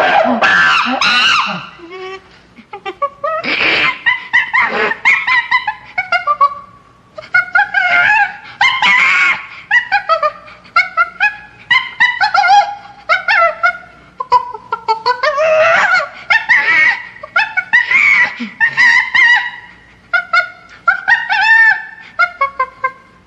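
Chimpanzee screaming: loud, high-pitched calls in rapid series, grouped into bouts with short lulls between them.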